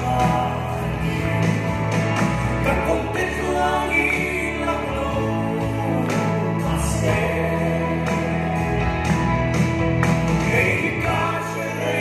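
Live gospel song: a male singer singing with a band over the hall's sound system.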